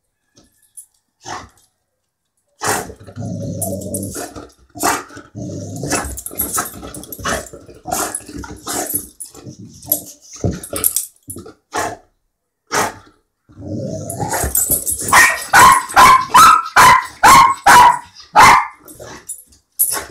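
Boxer dog growling in low rumbling stretches with scattered short yips and barks, breaking into a rapid run of about ten loud barks late on.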